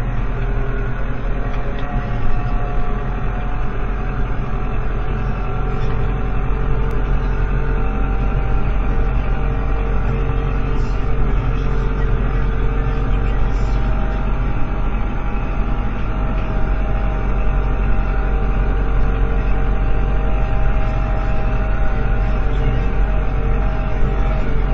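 Vehicle engine running steadily, heard from inside a cab: a constant low hum with several steady tones over it.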